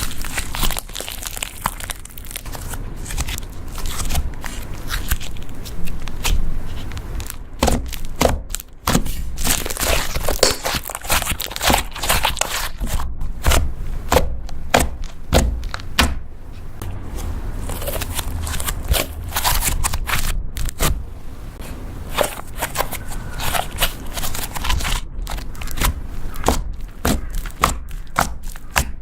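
Butter slime being kneaded and pressed by hand, giving a dense, irregular run of squishy clicks and crackling pops.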